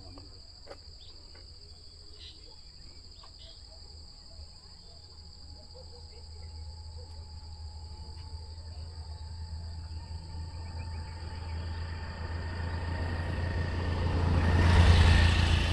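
Insects keep up a steady, high-pitched drone. A vehicle approaches with a low rumble that grows over several seconds and is loudest near the end as it passes.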